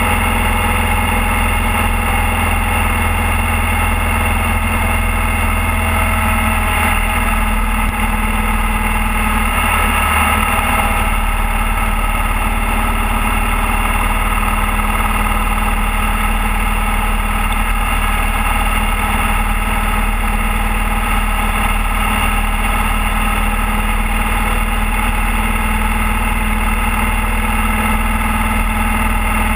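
Motorcycle engine running steadily at a constant cruising speed, with wind rushing past.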